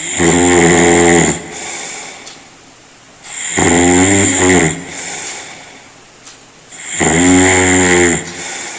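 A person snoring loudly: three long snores with a low buzzing pitch, about three and a half seconds apart, with a quieter breath between each.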